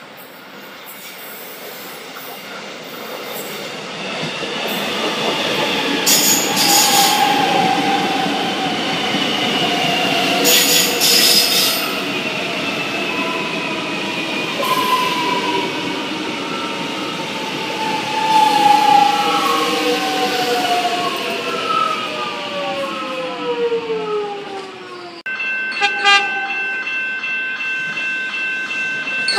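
X'Trapolis 100 electric multiple-unit train approaching and passing close by: a rising rumble of wheels on rail with two brief louder bursts, then traction motor whine falling steadily in pitch. About 25 s in, the sound changes abruptly to level crossing bells ringing.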